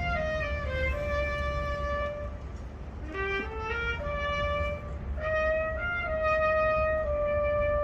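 A single wind instrument playing a slow melody of long held notes, with a quick rising run of short notes about three seconds in, over a low rumble.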